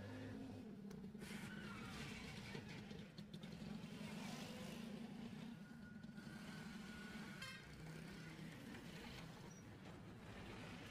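Faint background road traffic: a steady low rumble of passing vehicles.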